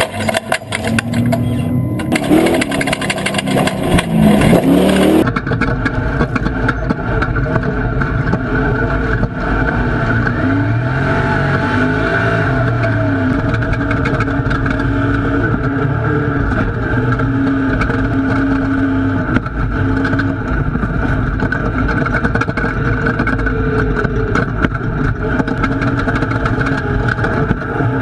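Off-road race truck's engine running hard, its pitch rising and falling as the driver gets on and off the throttle. The sound changes abruptly about five seconds in, as at a cut.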